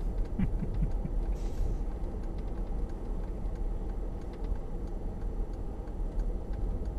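Steady low rumble of a Mercedes-Benz 4x4 heard from inside the cabin as it drives slowly over broken concrete, with scattered faint ticks.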